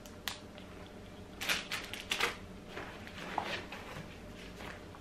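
Plastic packaging of a craft kit rustling and crinkling as it is handled, in short bursts, the loudest about a second and a half and two seconds in.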